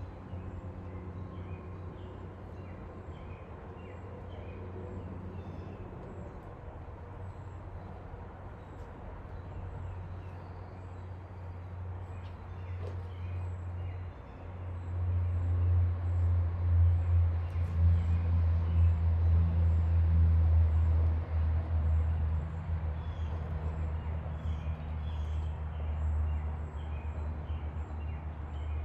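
Low rumble that grows louder and gustier about halfway through, then eases a little, with small birds chirping on and off above it.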